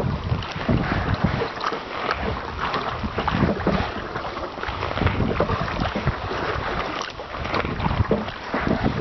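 Kayak paddle strokes splashing and dripping on choppy lake water, with wind rumbling on the microphone.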